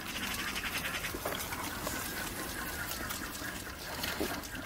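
Two lambs sucking milk from feeding bottles: soft, quick, repeated slurping and sucking.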